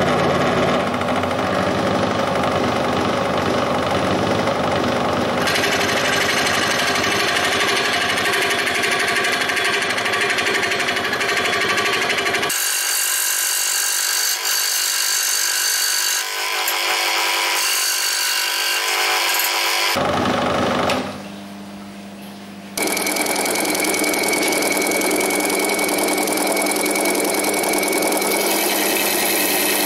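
Proxxon scroll saw running, its blade chattering up and down as it cuts a thin wooden part. The sound changes about midway through. After a short drop in level roughly two-thirds of the way in, a Proxxon disc sander runs steadily with a held whine as the part's curved edge is sanded against it.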